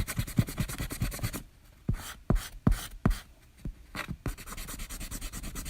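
A rapid series of sharp clicks or taps, about seven a second, breaking into a few separate louder clicks in the middle and picking up again near the end.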